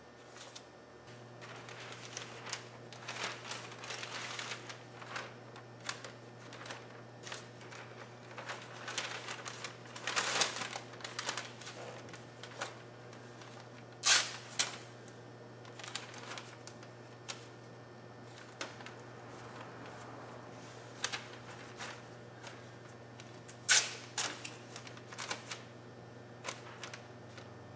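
Masking tape being pulled off the roll, torn and pressed down over masking paper: a string of short, sharp rasps and crinkles, with two louder tears about halfway through and near the end. A steady low hum starts about a second in and runs underneath.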